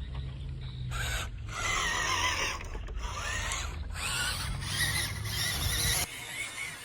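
Small RC crawler's electric motor and gearbox whining, the pitch rising and falling as the throttle is worked, over a low rumble that cuts off suddenly about six seconds in.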